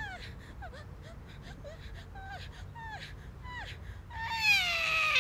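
A newborn baby whimpering in short, falling cries, breaking into a long, loud wail about four seconds in.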